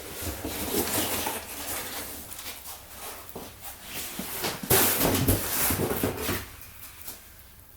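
Irregular knocks, clatters and rustles of things being handled, busiest about five seconds in and dying down near the end.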